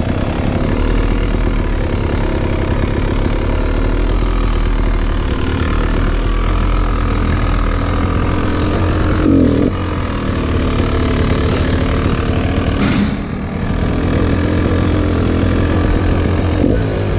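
Two-stroke dirt bike engine running at low revs, unmuffled and raw, with a short throttle blip about halfway through, a brief dip soon after and another small blip near the end.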